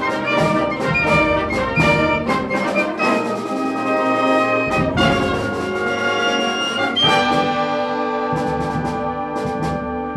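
Concert band playing a loud passage: sustained brass and reed chords over percussion strikes, with a new chord coming in about seven seconds in.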